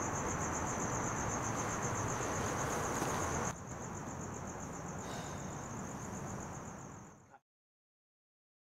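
Night ambience of crickets chirping in a fast, steady trill over a low background noise. The background drops about three and a half seconds in, and everything fades to silence a little after seven seconds.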